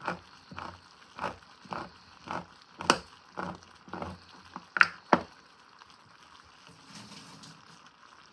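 A handheld manual can opener cranking around the rim of a tin can, a sharp click with each turn about every half second, about ten turns, stopping about five seconds in.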